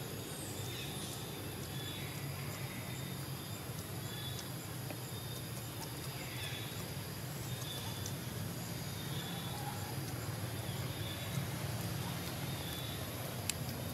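Steady outdoor background noise: faint, short high chirps repeating every second or so over a constant low rumble, with a couple of sharp clicks near the end.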